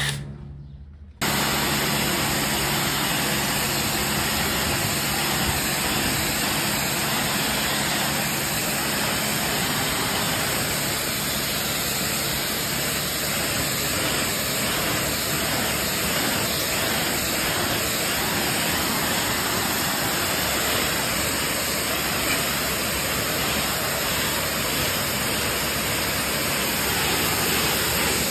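Pressure-washer lance spraying a high-pressure jet of water onto a dirt bike's frame and engine: a steady, loud hiss of spray that starts after about a second of silence.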